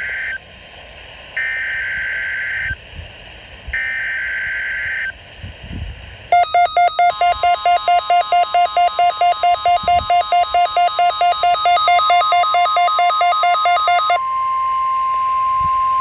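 Emergency Alert System test on NOAA Weather Radio, played through a Midland weather radio's speaker: three digital SAME header data bursts about a second apart, then the steady 1050 Hz warning alarm tone. For about eight seconds the radio's own rapid alert beeping, about four to five beeps a second, sounds over the tone, then stops and the tone continues alone.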